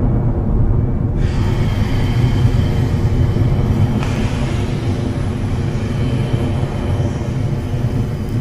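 Rocket Lab Electron rocket's nine-engine Rutherford first stage in powered climb, a steady, deep, noisy rumble with no pauses. About a second in, a brighter hiss joins on top.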